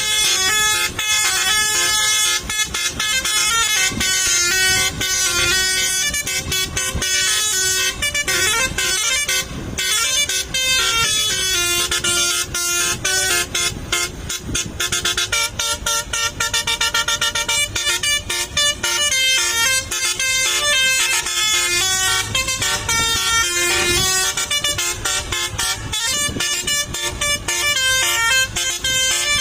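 Basuri, a multi-tone musical air horn on a tour bus, playing a fast melody without pause, its horn notes stepping quickly from pitch to pitch.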